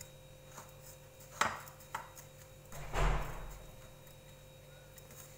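Light kitchen clatter from bowls and utensils being handled during food prep: a sharp tap about one and a half seconds in, a smaller tap half a second later, and a longer, duller knock about three seconds in.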